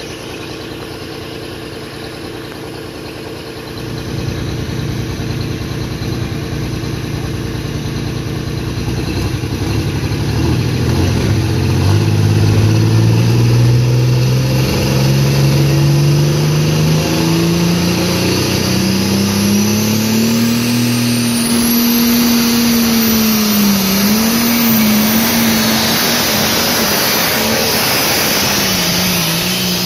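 Modified diesel pulling tractor's engine working under full load as it drags a weight-transfer sled, getting louder and climbing steadily in pitch, then holding and wavering near the top. A high whine rises about two-thirds of the way through and holds.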